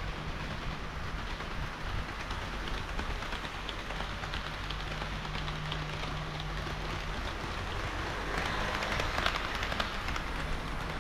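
HO-scale model train of KiHa 40 and KiHa 58 diesel railcars running along the track: a steady rolling hiss of metal wheels on rails, scattered clicks as the wheels cross rail joints, and a low motor hum. The rolling noise swells briefly about eight seconds in.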